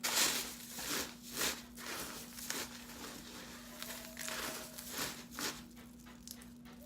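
Crushed cornflakes crunching and crinkling as a chicken tenderloin is pressed and turned in them by hand, in irregular bursts, the loudest right at the start.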